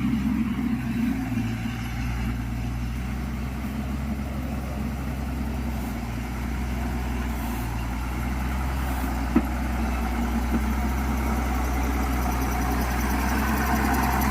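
Engine of a heavy road-grading machine running steadily as it scrapes and pushes soil along a dirt road, with one sharp click about nine seconds in.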